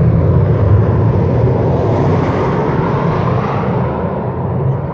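Fighter jet overhead, its engine making a loud, broad rushing roar that swells in hiss about two to three seconds in, then dies away as the jet moves off near the end.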